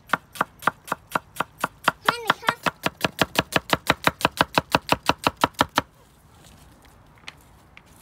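Kitchen knife chopping rapidly on a cutting board, about five even strokes a second, stopping abruptly about six seconds in.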